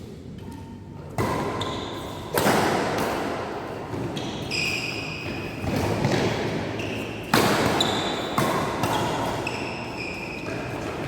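Badminton play in a reverberant hall: sharp racket hits on the shuttlecock roughly every one to two seconds, each ringing on in the hall, with short high squeaks of shoes on the court floor between the hits.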